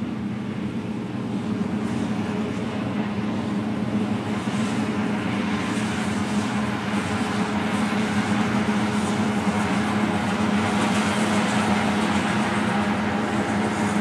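Combine harvester running steadily as it cuts corn: a constant engine and machinery drone with a strong hum, growing gradually louder as the machine comes closer.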